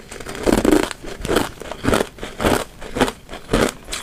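Thin ice being chewed, close to a lavalier mic: a crisp crunch about twice a second.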